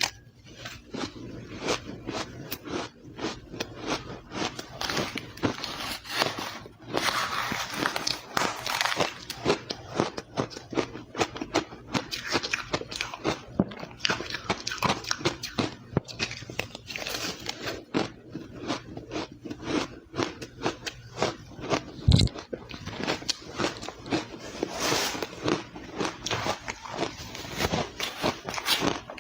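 Ice being bitten and chewed close to the microphone: dense, irregular crunching and crackling, with one loud low thump about 22 seconds in.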